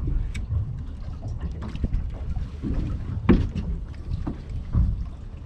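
Wind buffeting the microphone on a small fishing boat, with a low steady rumble and two sharp knocks about a second and a half apart, the first one the loudest.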